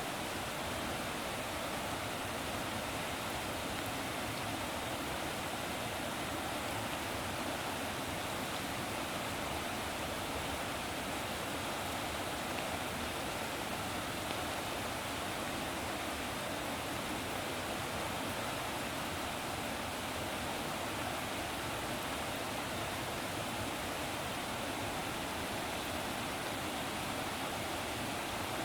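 Running water, a steady even rush with no pauses, surges or separate splashes.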